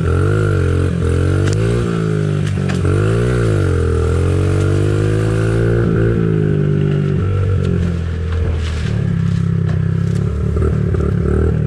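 Pit bike engine running as it is ridden, revving up and easing off several times in the first few seconds, then holding a steadier speed with a brief drop about eight seconds in.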